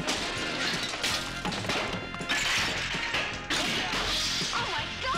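Movie sound effects of an apartment being wrecked: several crashes and smashes of objects being knocked over and broken, over a music score.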